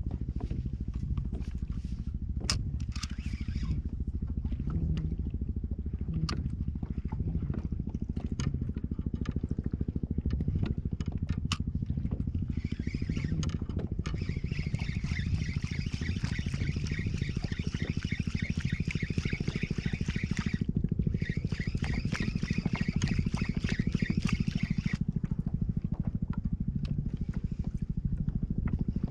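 A boat motor running steadily on the water. A higher-pitched whirring rides over it from about twelve seconds in until about twenty-five seconds, with a brief break just before the twenty-one-second mark.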